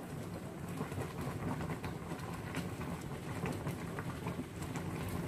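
Fish-head gulai in coconut milk bubbling in a pot on a gas burner: a steady hiss with a few faint clicks.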